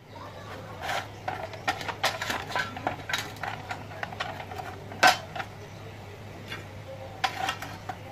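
Metal clicks, clinks and knocks as a cut-off saw's vise screw is turned and a steel bar is set into the vise, with one sharp clank about five seconds in.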